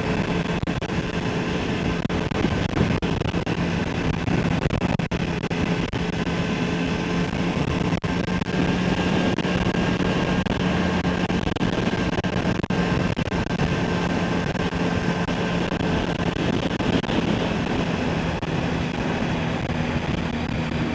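2008 Triumph Speed Triple's 1050 cc inline-three engine running steadily at expressway cruising speed, under wind and tyre noise.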